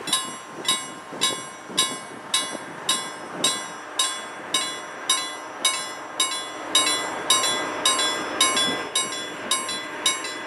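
Level-crossing warning bell ringing in steady strokes, a little under two a second, warning that a train is approaching. Near the end the strokes come about twice as fast.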